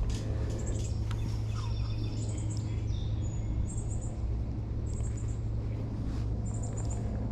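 Small songbird calling short, high trilled chirps about every second and a half, over a steady low hum.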